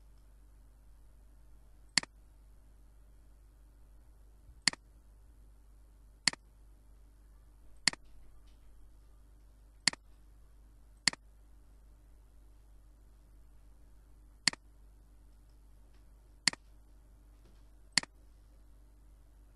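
Computer mouse clicking: nine single, sharp clicks spaced irregularly a second or more apart, over a faint steady hum.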